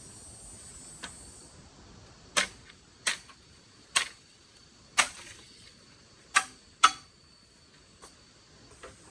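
A series of sharp clicks or snaps, about six loud ones at irregular intervals of roughly half a second to a second, plus a few fainter ones. Underneath is a steady high-pitched insect drone.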